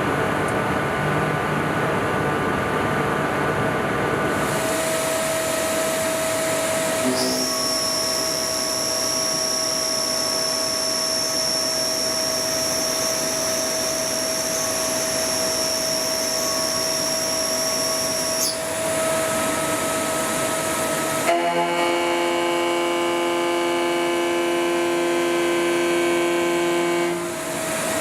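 Multi-tasking lathe's milling spindle cutting slots in carbon steel, a continuous machining noise carrying steady tones. A high whine runs from about 7 to 18 seconds. A second cut from about 21 to 27 seconds carries a different set of tones.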